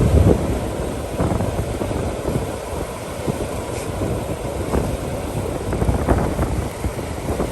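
Digging a pit in soil by hand: irregular dull thuds of the digging tool striking earth, over a steady low rumble.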